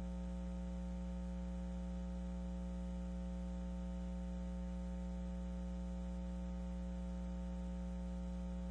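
Steady electrical mains hum: a low, even buzz with a ladder of overtones and nothing else on the sound.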